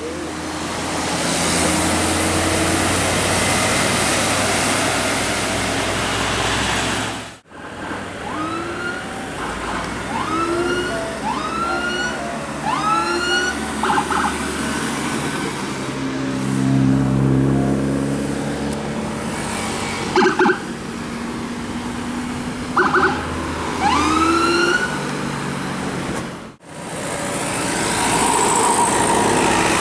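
A siren giving a run of short rising whoops, about one a second, with a few short steady horn blasts, over a steady rush of rain and traffic noise.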